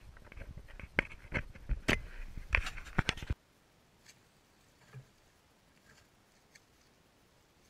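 Footsteps crunching through dry leaf litter, with several sharp twig-like cracks and handling rumble, cutting off suddenly after about three seconds. After that only a few faint ticks and one soft thump are heard.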